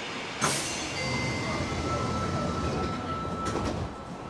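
Subway car doors sliding shut with a single knock, then the train's low running rumble with a thin steady electric whine as it sets off from the station.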